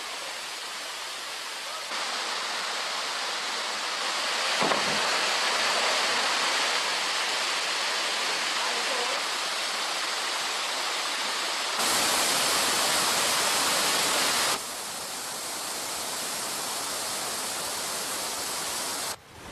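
Rochester Falls, a wide, low waterfall, pouring into its pool as an even rush of water. Its loudness steps up a couple of times and drops back again.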